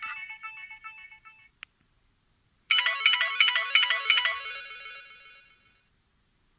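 Samsung GT-C3590 built-in phone tones: the end of one short melodic tone fades out, followed by a brief click, then after about a second of silence a new short bright chiming melody starts abruptly and dies away.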